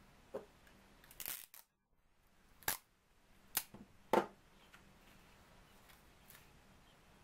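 Folded paper pieces and a clear plastic tape dispenser handled on a tabletop: a short rustle, then a few sharp taps and clicks against the table.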